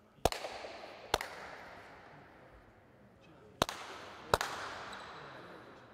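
Four sharp hand claps in two pairs, each clap ringing on with a long echo as in a large hall: the coach's sign for the players' next step in the knee-lift walking drill.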